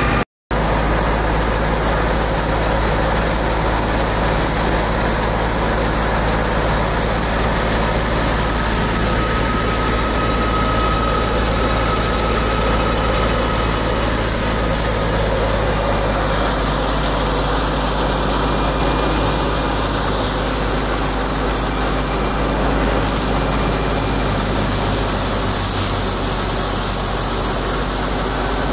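Fiat 640 tractor's four-cylinder diesel engine running steadily at a constant speed, with a split-second gap in the sound just after the start.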